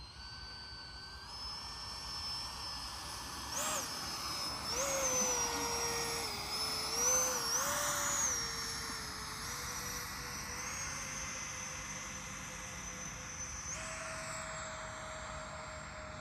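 Electric ducted fan of an FMS Rafale RC jet (80 mm fan) whining in flight. Its pitch rises and falls briefly several times with throttle changes a few seconds in, then settles and steps up once near the end.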